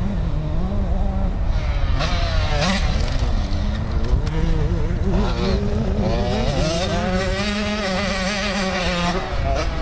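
Motocross bike engine revving up and down as it is ridden, its pitch rising and falling again and again over a steady low rumble.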